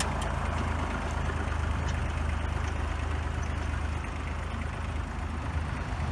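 Fordson tractor engine idling steadily.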